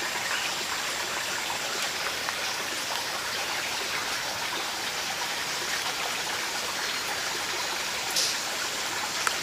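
A nearby stream running steadily, an even wash of water noise.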